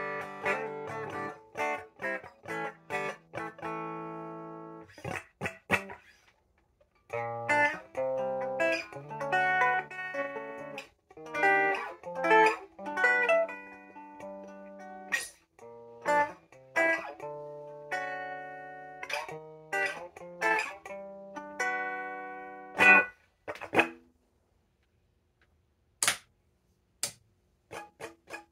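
Electric guitar played through an Earth PA-2000 amplifier head into a speaker cabinet: picked single notes and chords, some left ringing, with short pauses between phrases. Near the end the playing stops and two sharp clicks follow.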